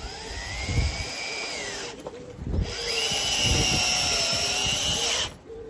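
Ten-year-old McAllister cordless drill driving a long screw: the motor whines up and runs about two seconds, stops, then runs again for nearly three seconds before stopping.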